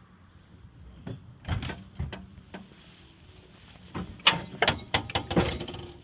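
A dozen or so sharp, irregular knocks and creaks, a few sparse ones at first and a louder, quicker cluster in the last two seconds.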